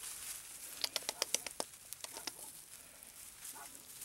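Small bird chirping: a quick run of about eight short, sharp chirps about a second in, then a couple more and a faint one near the end.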